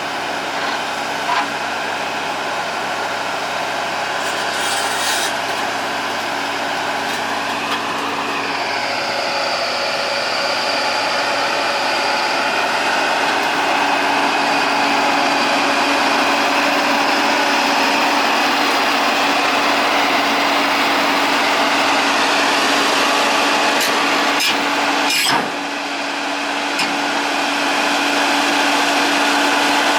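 Hitachi excavator's diesel engine running steadily, its pitch shifting about eight seconds in, with a few sharp knocks near the end.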